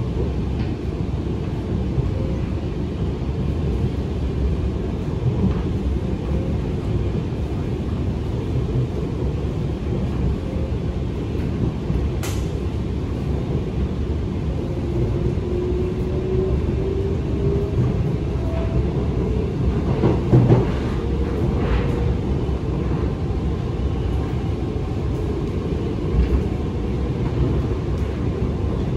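Alstom Movia R151 metro train heard from inside the car: a steady low rumble of the train running on the track. A faint rising whine comes about halfway through, and a sharp click and a knock come later.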